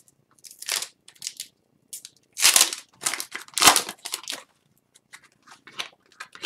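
Hockey card pack wrapper being torn open and crinkled by hand, then the cards slid out: a run of short crackly rustles, the two loudest about two and a half and three and a half seconds in.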